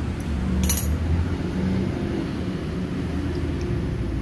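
A short metallic clink about a second in as a stick-welding electrode holder is handled against a copper torch tube, over a steady low rumble.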